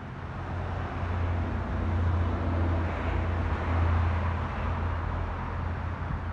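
Loud, steady outdoor rumble with a hiss over it, building over the first second and then holding, like passing traffic or wind on the microphone.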